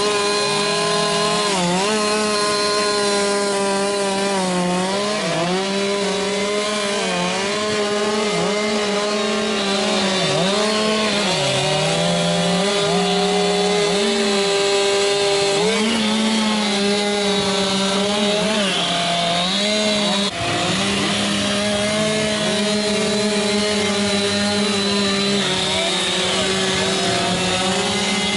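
Chainsaw running hard and carving into wood. Its pitch sags again and again as the chain bites, then climbs back, with one brief drop in level about twenty seconds in.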